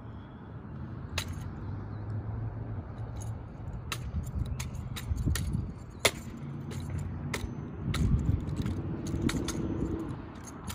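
A drill rifle being spun, tossed and caught by hand, giving a dozen or so sharp, irregularly spaced slaps and clacks, with a rattle of its metal parts. A low engine hum runs underneath.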